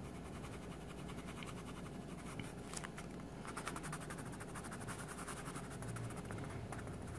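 Coloured pencil scratching over paper in rapid, faint back-and-forth strokes as a printed drawing is coloured in.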